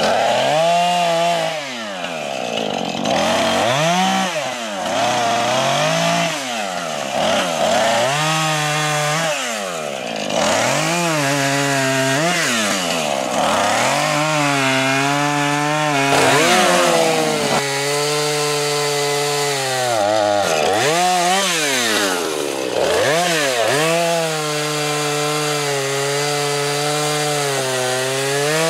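Chainsaw engine running, its pitch rising and falling over and over as the throttle is opened and let off, with stretches held at high revs while it cuts through wood.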